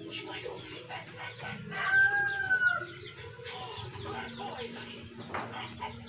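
A chicken gives one drawn-out call of about a second, steady and then dipping at the end, a little before the middle, over faint scattered taps and ticks.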